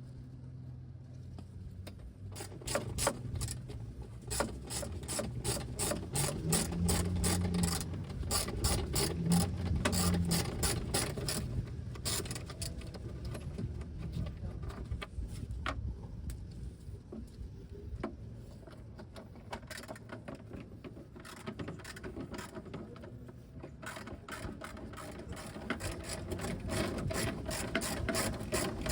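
Hand ratchet wrench clicking in long rapid runs as truck mud-guard bolts are worked loose, with sparser clicks and short pauses in the middle.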